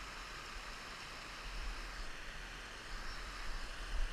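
Steady rushing of a rocky hill burn over stones, with a low wind rumble on the microphone.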